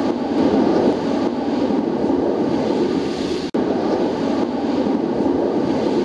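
Formation of military jets passing overhead: a loud, steady rushing roar that drops out for an instant about three and a half seconds in.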